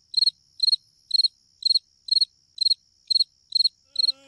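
A cricket chirping in an even rhythm, about two short high chirps a second, over a faint steady high-pitched tone.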